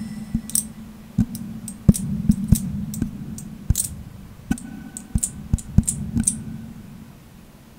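Irregular sharp clicks, a few a second and uneven in strength, over a low steady hum that slowly fades out.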